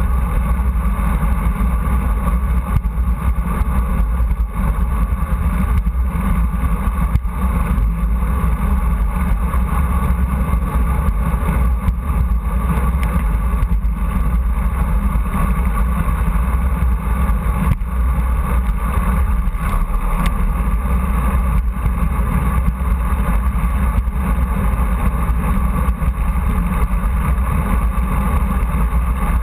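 Steady wind rush and road rumble on a bicycle-mounted camera's microphone while riding a road bike, with a few faint knocks from bumps in the road.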